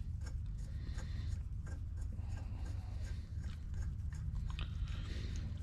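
Light, scattered metallic clicks and taps of bolts and hardened washers being handled and started into a Ford 9-inch's aluminum pinion support, over a steady low hum.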